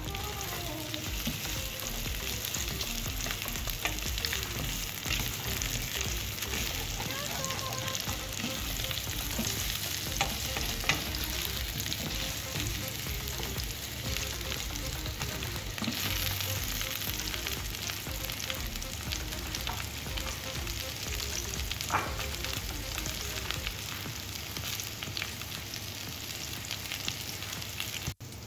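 Carrot slices frying in olive oil in a stainless steel pan, with a steady sizzle. They are stirred with a wooden spatula that knocks against the pan a couple of times.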